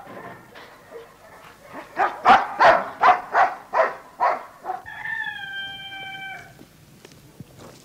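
A dog barking: a quick run of about eight barks, then one drawn-out cry about a second and a half long, falling slightly in pitch.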